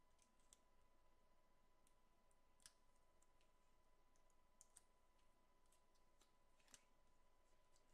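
Near silence, with a few faint scattered clicks and taps as fingers handle small paper eye pieces and foam adhesive dots.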